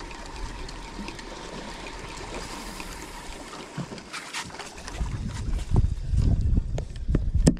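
Sea water lapping against a small fishing boat's hull, then gusty low rumbling from wind buffeting the microphone from about five seconds in, with a sharp knock near the end.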